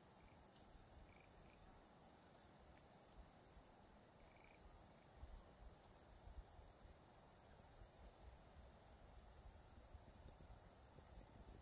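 Faint, steady, high-pitched chirring of insects such as crickets, pulsing evenly, over a low rumble.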